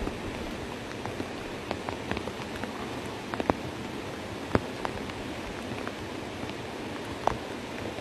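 Water making a steady hiss, with scattered sharp ticks and taps through it; the three loudest come about three and a half, four and a half and seven seconds in.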